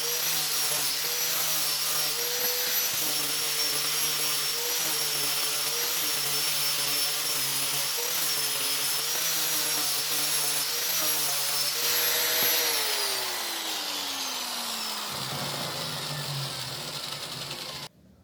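An electric power tool's motor runs at high speed with a steady whine that dips slightly in pitch now and then. About twelve seconds in it is switched off and winds down, its pitch falling over about three seconds. The sound cuts off suddenly near the end.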